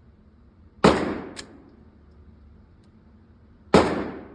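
Two suppressed gunshots from a short-barrelled rifle, about three seconds apart, each followed by a short echo in an indoor range, with a light click just after the first. The gas has been adjusted and the suppressor is now quieting the shots better.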